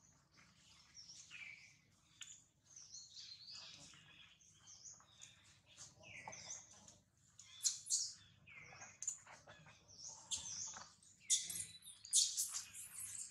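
High-pitched animal calls: many short chirps and squeaky notes, several sliding downward in pitch, with a few louder, harsher calls in the second half.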